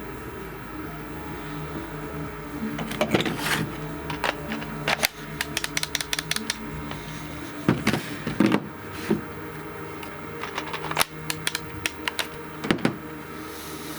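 Scattered clicks and knocks from handling a DeWalt cordless angle grinder and its FlexVolt battery, with no motor running up. The batteries are faulty and won't start the grinder.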